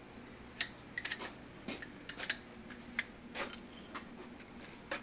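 Light metallic clicks and clinks of a ratchet wrench and steel parts being handled at a bench vise. They come irregularly, about a dozen short, sharp ones, a few in quick pairs.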